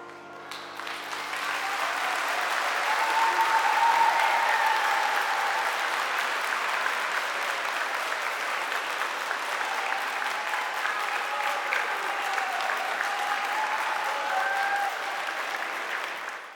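Audience applauding, starting about half a second in, just as the dance music ends, and building over the first few seconds, with a few voices calling out over the clapping. It cuts off abruptly at the end.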